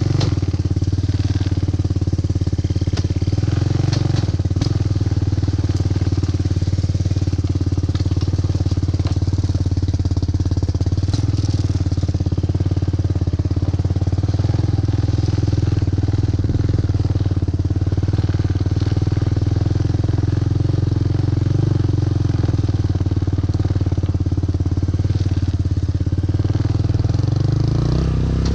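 Four-wheeler (ATV) engine running steadily while riding, a constant low drone, with a few light clicks and rattles scattered through it.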